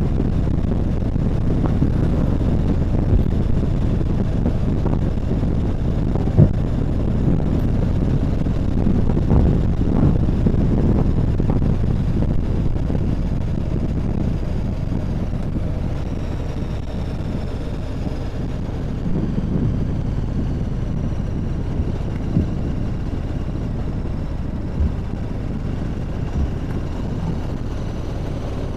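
Motorcycle under way: engine running steadily with wind noise on the microphone, mostly low in pitch. From about halfway, faint high whining tones slowly fall in pitch.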